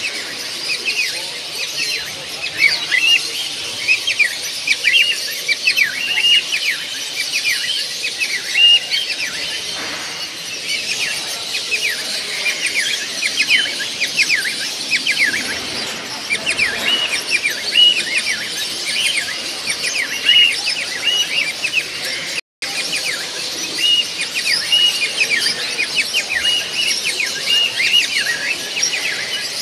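A hall full of caged birds, cockatiels among them, calling nonstop: many short, high chirps and squealing calls overlapping, several every second. The sound cuts out completely for a split second about two-thirds of the way through.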